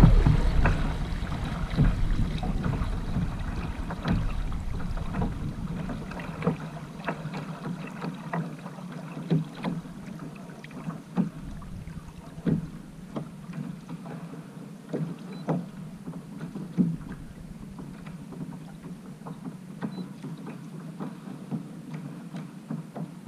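Small waves slapping and knocking on a plastic fishing kayak's hull as it moves along, carried into the hull-mounted camera as irregular sharp taps. Under the taps is a steady low hum, louder at first and fading over the first several seconds.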